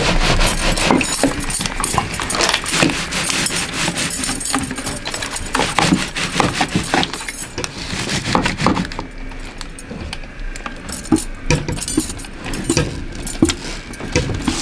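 Stacked metal bangles jingling and clinking on a wrist as soap batter is scraped out of a plastic bucket with a silicone spatula: many small clinks, busier in the first half.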